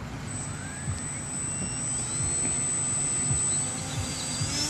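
Small electric RC plane's brushless outrunner motor and 6x4 propeller spinning up: a thin high whine, then a stack of tones slowly rising in pitch that climb sharply near the end as the throttle is opened for a hand launch.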